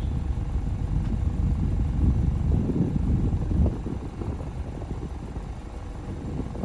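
Stock exhaust of a 2023 Mazda Miata ND2's 2.0-litre four-cylinder engine at idle: a steady low rumble, easing slightly a little past halfway.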